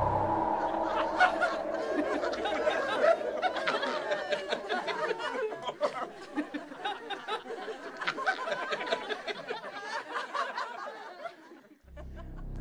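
Children's laughter and chatter, many short giggles and squeals, fading away near the end. A held music chord dies out in the first half-second.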